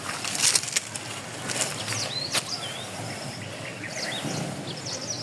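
Small birds chirping in short, repeated calls, over a few brief clicks and rustles.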